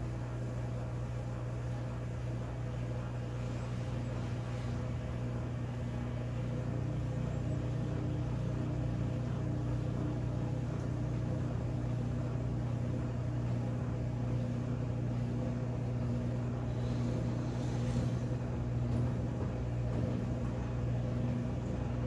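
Brastemp BWK14 14 kg top-load washing machine in its spin cycle, the drum spinning a load of wet towels: a steady motor hum that grows a little louder over the first several seconds.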